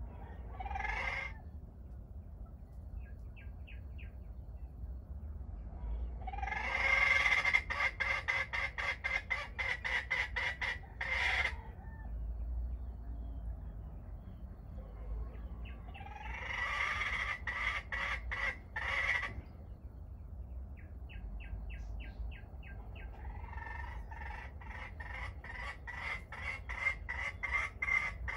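Wild junglefowl calling: a short call, then three long bouts of loud, rapidly pulsed calling. Brief runs of faint high chirps come from a small bird in between.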